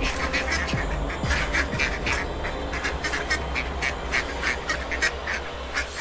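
A flock of mallard ducks quacking, many short quacks coming several a second and overlapping.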